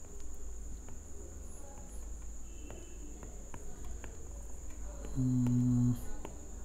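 Faint stylus clicks and taps on a tablet screen over a steady high-pitched electrical whine and low hum. About five seconds in, a short steady low hum of a man's voice, held for under a second.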